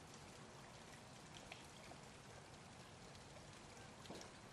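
Near silence: a faint, steady hiss with a couple of faint ticks.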